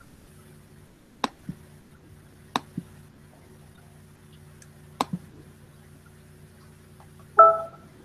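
Sharp computer clicks in three quick pairs, each pair a double click, over a steady low electrical hum. Near the end comes a short, loud pitched blip, the loudest sound.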